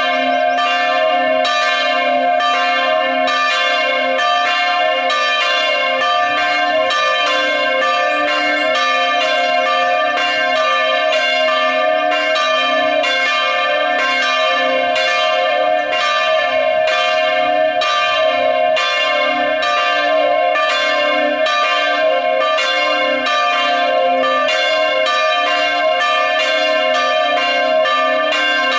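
Full peal (plenum) of the Godensholt chapel's church bells, all bells swinging together in a freestanding wooden bell tower. The strokes overlap in a steady, continuous stream of ringing.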